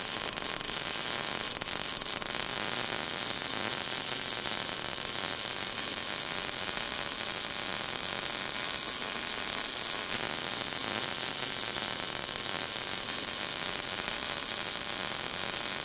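Steady, even hiss with a fine crackle, the sizzle of an electric welding arc used as the outro's sound effect. It runs unchanged, with no beat or tune.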